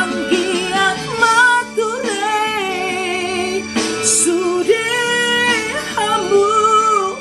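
A woman singing a Batak-language song over backing music, drawing out long held notes with a wavering vibrato.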